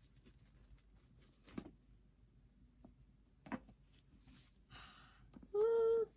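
A satin ribbon being untied and slid off a cardboard gift box: faint, soft rustles and a few light taps. Near the end comes a brief hummed note from a woman's voice, the loudest sound.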